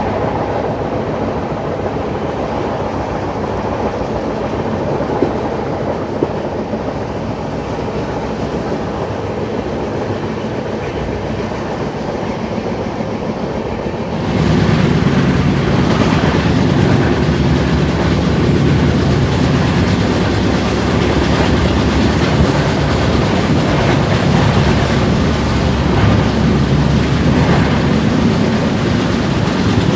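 Passenger express train running along the track, a steady rumble and rattle that gets suddenly louder about halfway through and stays louder.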